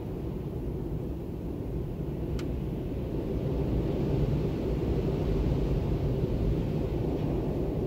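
Storm wind blowing in gusts, a low rushing noise that swells louder about three seconds in.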